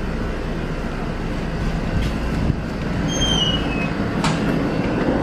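Steady low rumble of a vehicle in motion, with a brief high falling squeal about three seconds in.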